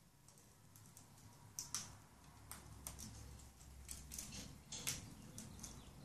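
Amazon parrot chewing and snipping leafy branches with its beak: faint, irregular sharp clicks and crackles, a dozen or so scattered through the few seconds.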